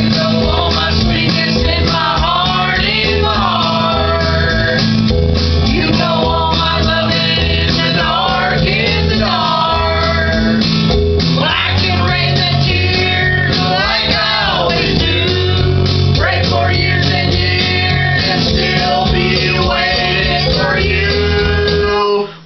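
Several voices singing together into a microphone over guitar-led rock-blues music; the music cuts off abruptly near the end.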